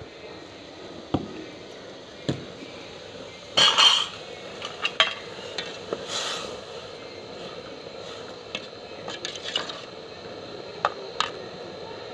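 Metal ladle clinking and scraping against a metal cooking pot while vermicelli is stirred into boiling water. There are scattered knocks throughout, with the loudest clatter about four seconds in.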